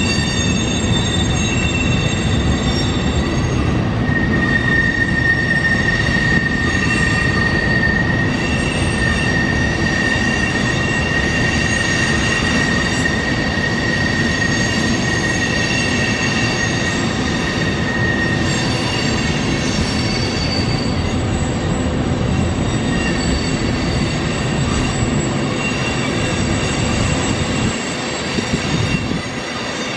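Freight train of empty oil tank cars rolling past, steel wheels squealing on the rail in steady high tones over the rumble of the wheels. The rumble eases a little near the end.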